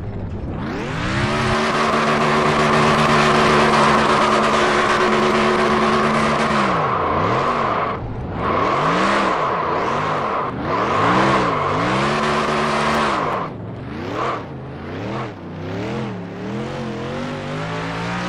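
Race car engine climbing to high revs and holding there at full throttle for several seconds. The revs then fall and rise again several times as the throttle is lifted and reapplied, and near the end it settles to lower, unsteady revs.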